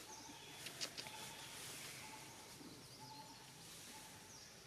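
Faint outdoor ambience: a steady hiss with a few short, faint bird chirps and a sharp click a little under a second in.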